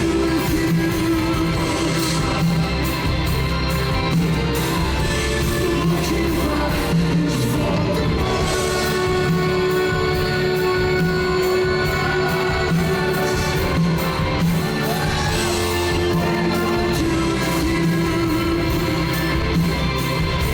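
Rock band playing live in a theatre, with a steady low bass pulse, sustained chords and a sung vocal line over them.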